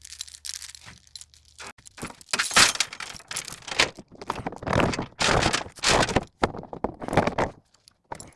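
A metal chain rattling and clinking in irregular bursts as it is handled, growing busier about two seconds in.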